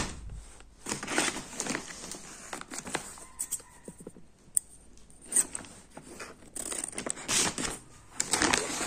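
Scissors cutting open a brown paper courier mailer, the paper crinkling and tearing as it is cut. The cuts come in short, irregular strokes and are busiest near the end.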